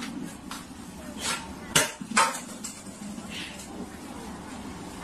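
Plastic water bottle knocked off a shelf by a cat, hitting the floor with a sharp knock and bouncing once about half a second later, after a few lighter taps.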